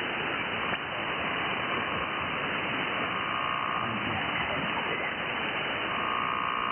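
Icom IC-705 transceiver receiving on the 20 m band in single-sideband mode, giving steady band-noise hiss through its speaker while being tuned between stations. There is a brief click just under a second in, and a steady whistle-like carrier tone comes in around the middle and again near the end.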